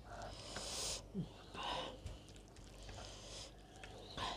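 A person breathing and sniffing through the nose close to the microphone between mouthfuls, three hissing breaths in a row.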